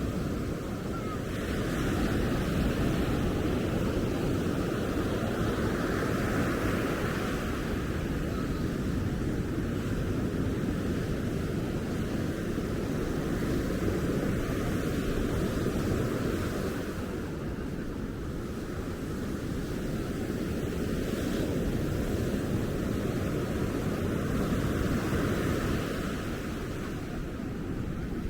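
Ocean surf breaking on a sandy beach: a steady wash of waves that swells and eases every few seconds, with a low rumble of wind on the microphone.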